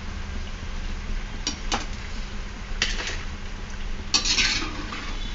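Pakoras sizzling as they deep-fry in hot ghee in a steel kadai, with a metal slotted spoon scraping and clinking against the pan a few times as the golden-brown, fully cooked pakoras are lifted out.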